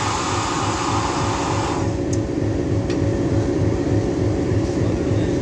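Diesel-electric locomotive engine idling close by, a steady low pulsing rumble. A loud hiss over it stops suddenly about two seconds in.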